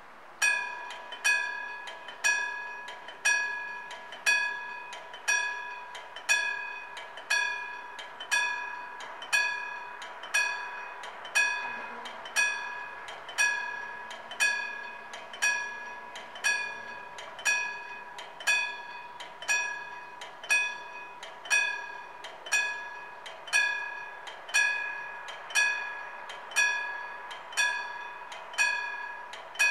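Old Siemens level-crossing warning bell, a single-stroke bell, striking about once a second from about half a second in. Each stroke rings out with several clear tones and fades before the next. It is the crossing's alarm, warning of an approaching train while the half barriers come down.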